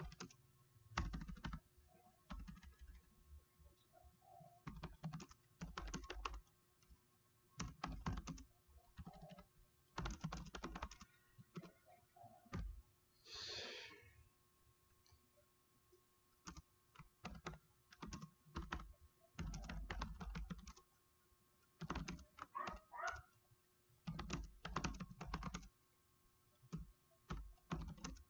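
Typing on a computer keyboard: quick runs of key clicks in short bursts, with pauses between them.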